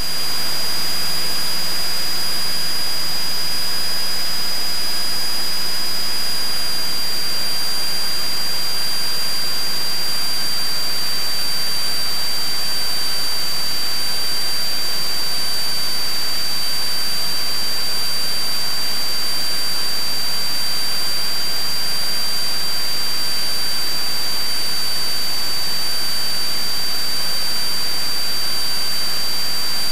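Steady in-flight noise of a Cessna 172: an even hiss with a constant high-pitched whine over a faint low hum.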